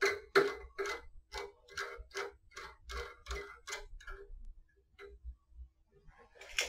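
A steel nut being turned down by hand on a photo-eye sensor's threaded barrel, giving a run of small, even clicks, about three a second, that stops about four seconds in, with a few faint handling sounds near the end.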